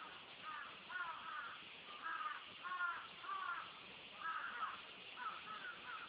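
Crows cawing repeatedly, about ten short caws in quick succession, over a steady chorus of cicadas.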